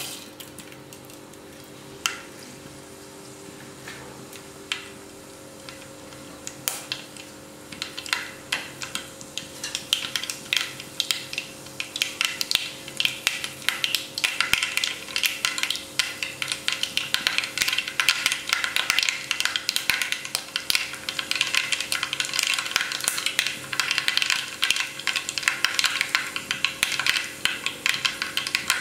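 Mustard seeds frying in hot coconut oil in a clay pot, sizzling and popping. The pops are sparse at first and build into a dense, fast crackle from about ten seconds in as the seeds burst.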